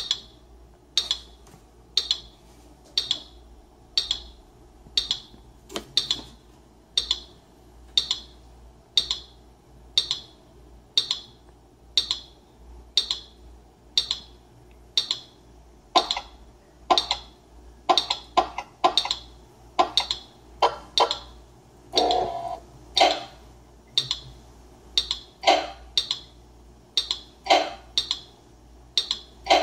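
Teenage Engineering PO-24 Office pocket drum machine playing a looped beat through a small portable speaker. A sharp click sounds about once a second, and about halfway in lower, fuller hits join between the clicks, with one longer held tone a little past two-thirds in.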